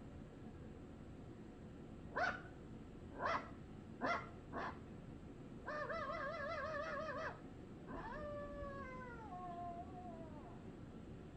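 Cartoon dogs barking on a film soundtrack played from a television: four short barks, then a wavering howl about six seconds in and a long howl that falls in pitch.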